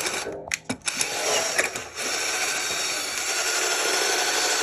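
Electric drill boring a hole through a car's dashboard, started in a few short bursts and then run steadily before it stops.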